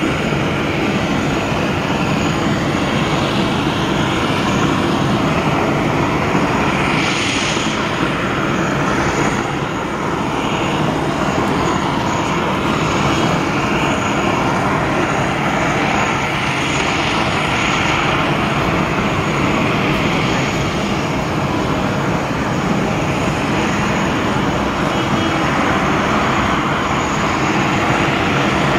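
Jet engine noise from a Boeing 737-800's CFM56-7B turbofans, a steady, even noise as the airliner touches down and rolls out along the runway.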